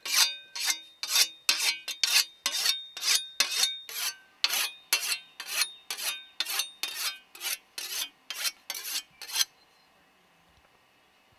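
A scythe blade being sharpened with a whetstone: quick, even rasping strokes, about two a second, each leaving the steel ringing briefly. The strokes stop about nine and a half seconds in.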